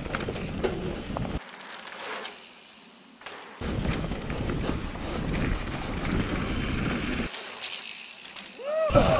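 Mountain bike rolling fast down a dirt forest trail: tyre rumble and the bike rattling, with wind noise on the microphone. Twice the low rumble drops away for a second or two.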